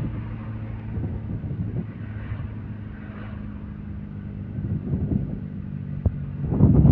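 Car engine hum and road noise heard from inside the cabin while driving. The noise is steady, with a sharp click about six seconds in, and it grows louder near the end.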